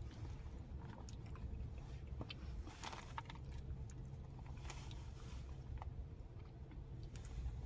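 Faint close-miked chewing and mouth sounds of someone eating chili and cornbread, with a few soft clicks, over a low steady hum.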